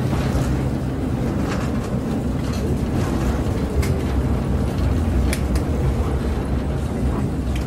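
KiHa 56 diesel railcar running, heard from inside the passenger cabin: a steady low diesel drone and running rumble, with a few sharp clicks from the track.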